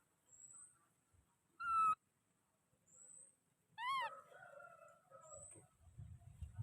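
Baby monkey giving two short, high-pitched calls about two seconds apart, the second rising and falling in pitch. A faint, very high rising chirp repeats every two to three seconds behind them.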